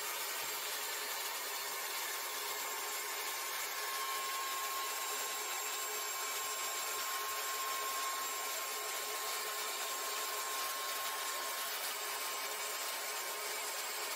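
Shop vacuum running steadily with a constant whine, its nozzle held to a foundation-wall crack to suck out dust and efflorescence that a wire brush is loosening.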